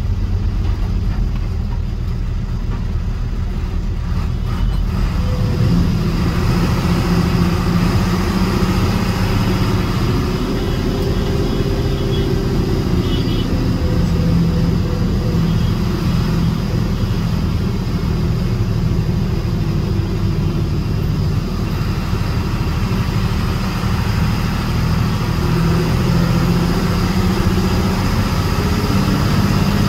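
A moving bus's engine and road noise: a steady low drone with no break, holding at a cruising pace.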